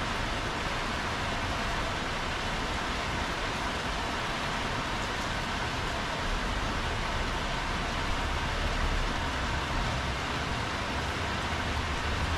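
Heavy rain falling steadily on wet paving tiles, an even hiss with a low rumble underneath.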